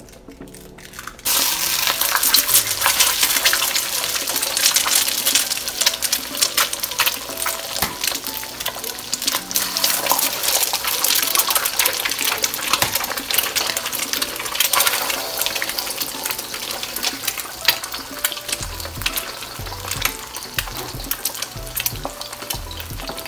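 Eggs frying in hot olive oil in a wok: a loud, dense sizzle and crackle of spattering oil that starts suddenly about a second in, as the eggs hit the oil, and keeps on steadily.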